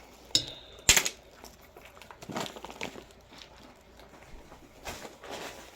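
Rough and polished rocks clinking against each other as they are picked up and set down: two sharp clicks about half a second and a second in, the first with a short ring, then scattered lighter clicks and handling rustle.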